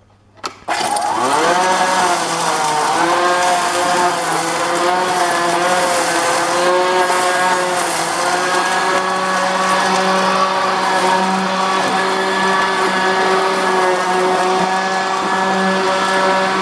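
Black and Decker LSW36 cordless vacuum switched on with a click about half a second in, its motor spinning up to a steady whine that dips slightly in pitch now and then as it sucks debris off a floor mat.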